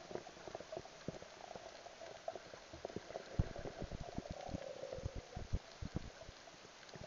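Underwater sound picked up by a submerged camera: irregular sharp clicks and pops, thickest in the middle, over faint bubbling water.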